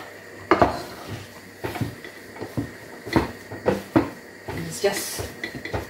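A spatula knocking and scraping against a cooking pot as a stiff mass of ugali dough is pressed and turned. The knocks come irregularly, about every half second.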